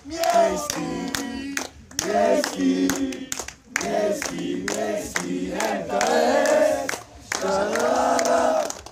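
A crowd of football supporters singing a terrace chant together in loud phrases broken by short pauses, with sharp hand claps in between.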